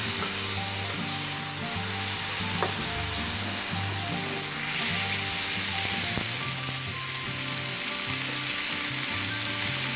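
Chopped tomatoes, onions, green peas and curry leaves sizzling steadily in oil in a pan, being stirred with a flat spatula.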